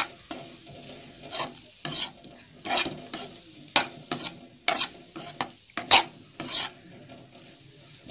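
Spatula stirring and scraping boiled baby potatoes around a kadai, with short irregular scrapes roughly two a second over a faint sizzle of oil, as the potatoes roast with chilli and turmeric powder on a low flame.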